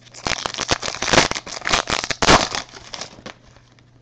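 Trading card pack wrapper crinkling as it is handled and torn open: a dense run of crackles lasting about three seconds, then dying away.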